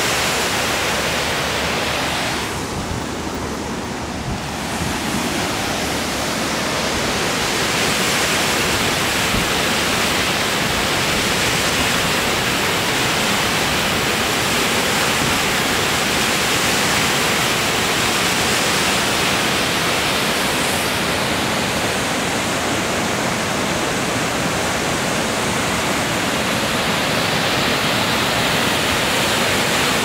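Loud, even rush of falling water from a tall waterfall plunging into a rocky pool. It softens briefly about three seconds in.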